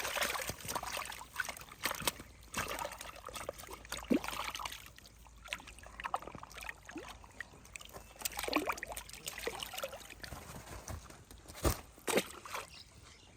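Water sloshing and trickling, with scattered small splashes and clicks and a couple of sharp knocks near the end.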